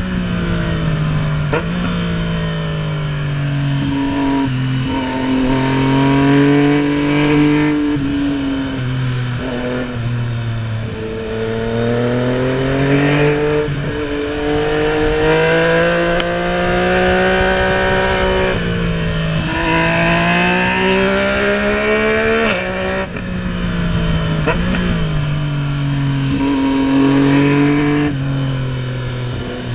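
Yamaha MT-09's inline three-cylinder engine under way. Its pitch climbs as it accelerates and falls back as it slows, with several quick drops as it shifts gear, over a steady rush of wind.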